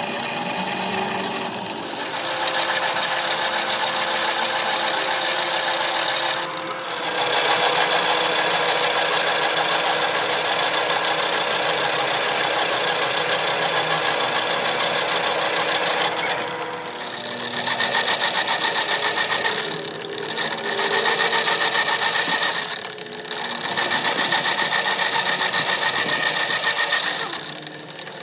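Drill press running, its bit cutting into a steel axle shaft with a steady mechanical whine. It cuts in two long spells, then in three shorter ones of a few seconds each, with brief dips between them.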